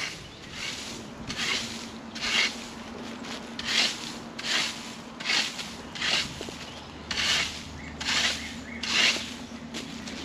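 A makeshift broom made from a forked branch sweeping leaves and debris across the ground: about a dozen scraping swishes, roughly one a second.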